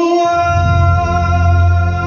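Performance music: a held chord of steady tones over a deep bass note that comes in within the first half second.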